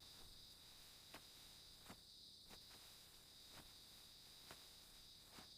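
Faint crickets trilling steadily at night, one continuous high-pitched tone, with a few soft, scattered ticks.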